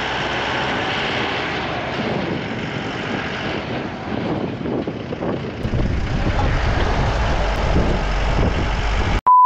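Steady rush of wind and road noise from a moving vehicle, with a deeper rumble coming in about halfway through. A steady high beep cuts in just before the end.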